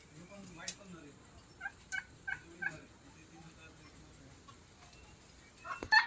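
Domestic turkeys calling: faint low calls, then a quick run of about four short, higher notes around two seconds in. Just before the end comes a single sharp knock, the loudest sound here.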